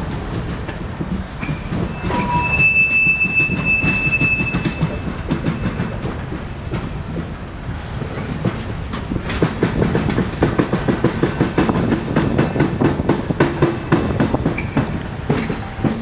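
Freight train of covered steel coil cars rolling past, wheels rumbling and clacking over rail joints. A thin, high wheel squeal sounds from about two seconds in to about five seconds in. From about nine seconds in the clacking gets denser and louder.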